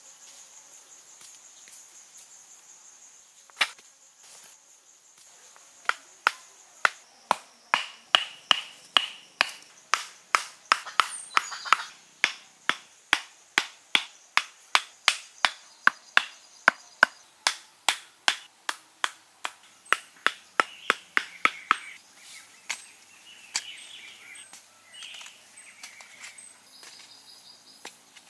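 Short wooden stakes knocked into the soil with a piece of wood: a long run of sharp, even wooden knocks, about two to three a second, with a single knock a few seconds before. Insects whine faintly at the start, and birds chirp near the end.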